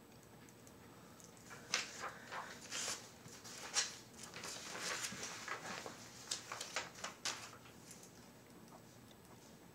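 A string of light rustles and clicks for several seconds, starting about a second and a half in and dying away near the end, over a quiet room background.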